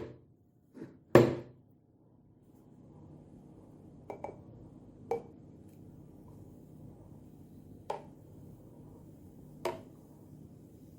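Espresso gear being handled on a counter: two sharp knocks near the start, the second the louder, then a few lighter clinks about every two seconds over a faint steady hum.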